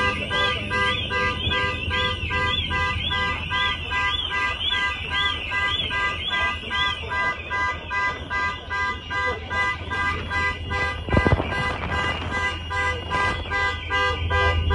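Several car alarms sounding at once: one warbling siren sweeps up and down about twice a second and stops about halfway through, while another beeps in a steady pulse about twice a second throughout. A steady low hum runs underneath, and a single knock comes about two-thirds of the way in.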